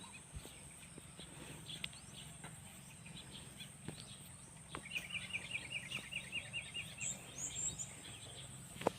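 Faint outdoor ambience with a bird giving a quick run of about ten short chirps midway, then a few higher chirps, over scattered faint clicks.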